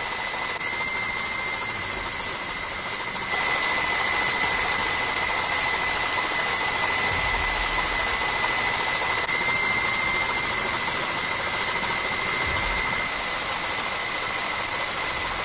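Steady aircraft engine noise heard from on board: a loud, even hiss with a constant high whine, stepping up a little louder about three seconds in.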